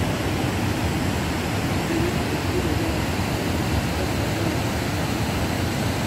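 Steady rushing noise with a deep, fluttering rumble underneath, even in loudness throughout.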